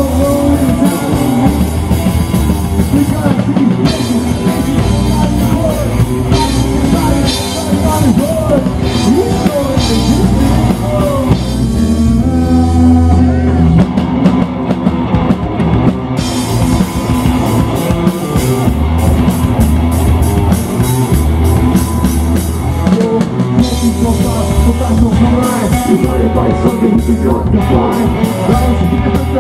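Live rock band playing through a PA: drum kit beat, electric guitars and bass, with some singing, loud and continuous.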